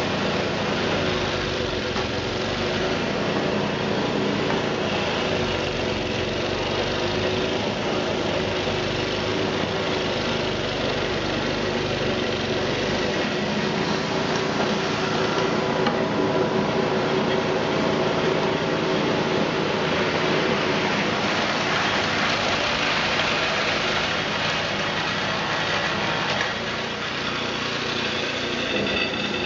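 Small gasoline snowblower engine, on a two-stage machine fitted with an upgraded impeller, running steadily under load while it throws wet snow. The sound eases slightly near the end.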